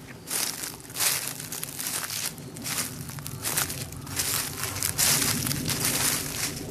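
Footsteps crunching through dry fallen leaves on a forest floor, a run of uneven crackling steps as someone walks.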